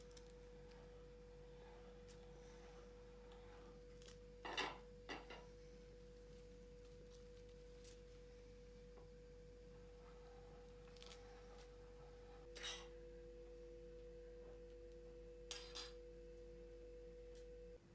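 Near silence: faint room tone with a steady high hum, joined by a second, lower hum about two-thirds of the way through, and a few soft clicks and taps from handling food and dishes.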